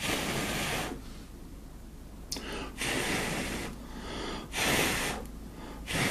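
Five short, hissing puffs of breath, about a second or two apart.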